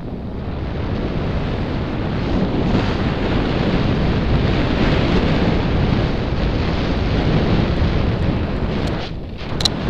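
Wind rushing over the microphone of a skier's camera during a downhill run, mixed with the skis running over snow, growing louder a few seconds in. Near the end the rush briefly drops and there is a single sharp click.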